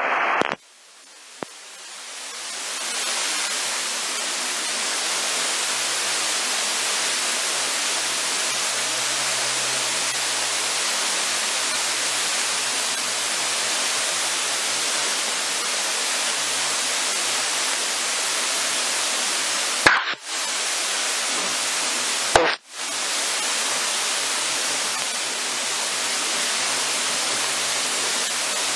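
Steady static hiss on the aircraft's intercom/radio audio feed, swelling in over the first couple of seconds after the speech cuts off. Two sharp clicks with brief dropouts break it about twenty and twenty-two seconds in.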